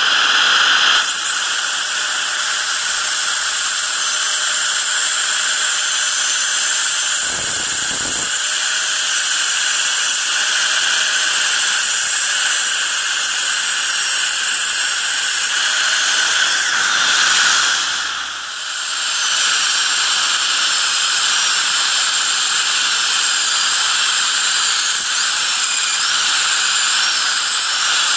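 High-speed dental turbine handpiece whining with its water spray hissing as it cuts into a dental bridge to free it for removal, its pitch wavering as the bur loads and unloads, with a dental suction tip hissing alongside. The whine drops away briefly about 18 seconds in, then resumes.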